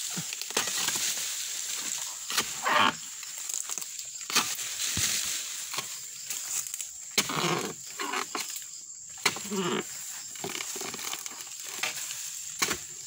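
A long-handled harvesting blade chopping into the frond bases and bunch stalk of a low oil palm. Sharp chops come every second or two, with rustling and scraping of fronds and fibre between the strikes.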